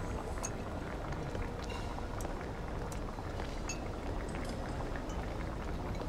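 Steady restaurant background noise with scattered light clinks of tableware.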